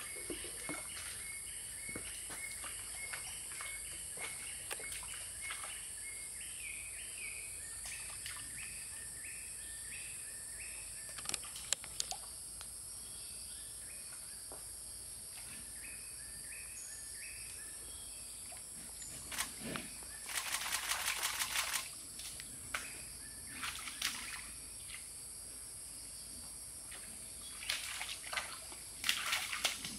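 Tropical forest ambience: a steady high-pitched insect drone with a bird calling in repeated short chirps through the first half. A few louder wet splashing bursts come from the Sumatran rhino calf moving in its mud wallow, the longest about two-thirds through and more near the end.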